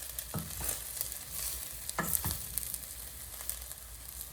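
Fried rice being stirred in a pot, the cooking spoon scraping through the rice and knocking against the pot a couple of times, over a steady sizzle.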